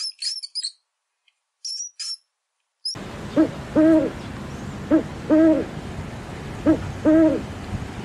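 Mouse squeaking, a few short high-pitched squeaks in the first two seconds or so. Then, about three seconds in, an owl hooting over a steady hiss: a two-note call, a short note followed by a longer one, given three times.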